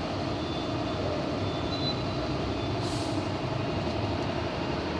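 AUX mini split air conditioner's indoor unit running, its fan blowing at full speed with a steady low hum. A short hiss comes about three seconds in.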